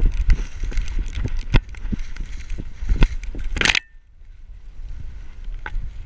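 A hunting dog pushing through snowy standing corn, heard from a camera on its back: dry corn stalks and leaves rustle, crackle and snap against it while paws crunch in snow, with low thumps from its movement. A loud rasping scrape comes about three and a half seconds in, then it goes quieter.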